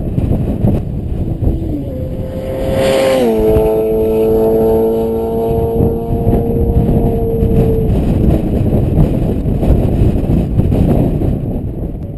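Honda CBR900RR Fireblade's inline-four engine, through a Devil aftermarket exhaust, passing by at speed. Its note drops sharply in pitch about three seconds in as it goes past, then holds and fades away over the next few seconds, over a dense low rush.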